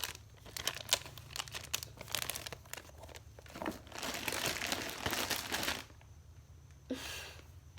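Crinkling and rustling from squishy toys being handled: a run of sharp crackles, then a longer, denser stretch of crinkling about four seconds in, and a short rustle near the end.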